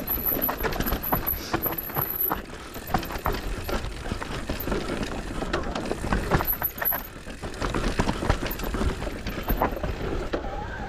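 Mountain bike ridden fast down a dirt trail: steady tyre and ride noise with many quick rattles and clatters from the bike over rough ground, and low wind rumble on the microphone.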